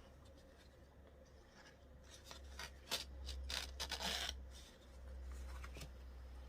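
Hands working on a leather notebook setup: rubbing, scraping and a few sharp clicks cluster from about two seconds in, then softer rubbing, over a steady low rumble.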